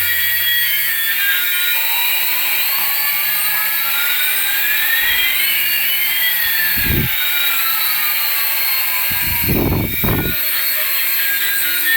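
Electronic toy aircraft sound effects: high beeping tones, with a slow rising whistle and a slow falling whistle that cross midway, and a few low thumps near the end.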